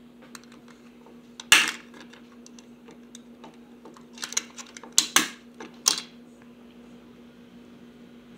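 Hard plastic toy parts of a cage-shaped candy-caddy toy clicking and clattering as they are handled: one loud clatter about a second and a half in, then a quick run of sharp clicks between four and six seconds in, over a steady low hum.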